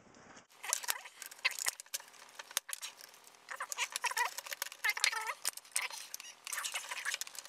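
Smoke detector's plastic ionization chamber and circuit board being pried and worked apart with pliers: a busy run of clicks, cracks and short squeaks of plastic and metal.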